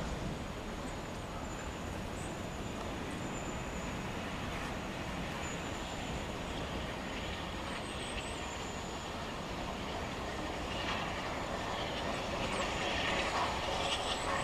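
Bulleid Battle of Britain class steam locomotive 34067 Tangmere hauling a train of coaches, heard from a distance as a steady rumble of engine and wheels that grows a little louder in the last few seconds as it comes nearer.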